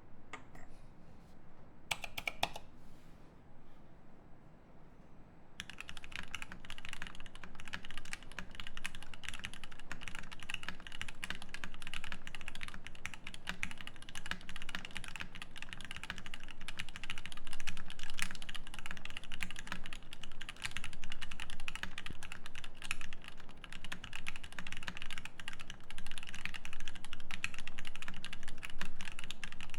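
Fast, continuous typing on a Godspeed75 mechanical keyboard with a brass plate, lubed Zeal Turquoise Tealio linear switches and GMK Ashes keycaps. The steady stream of keystrokes begins about five seconds in.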